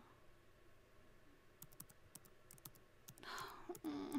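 Faint, irregular clicking of computer keyboard keys being typed on, starting about a second and a half in. Near the end there is a soft breath and a brief hummed voice sound.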